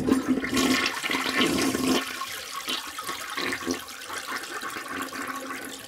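Toilet flushing: a rush of water that is loudest for about the first two seconds, then drains away more quietly.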